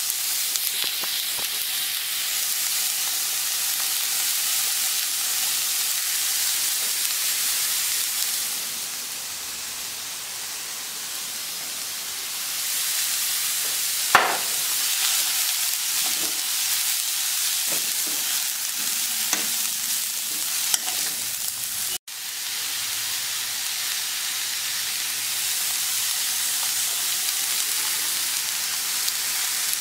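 Vegetables and shredded chicken sizzling in a hot steel wok as a metal spoon stirs them. The sizzle eases for a few seconds, and about halfway through the spoon knocks sharply against the wok, followed by a few lighter knocks.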